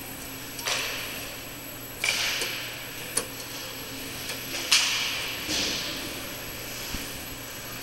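A small child's hands knocking and clacking on a vending machine's front and coin-return flap, about five sharp knocks each with a short rattle, over the steady hum of the machines.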